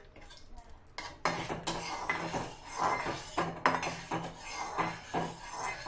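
A spatula scraping and clinking round and round the inside of a metal kadai, spreading a spoonful of hot ghee; the strokes start about a second in and come quickly and unevenly.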